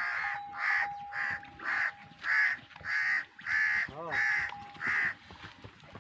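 Harsh calls repeated about twice a second, crow-like cawing, with a faint steady thin tone underneath in places.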